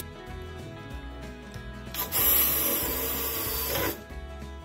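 Cordless drill driving a screw, running for about two seconds in the middle, over background music.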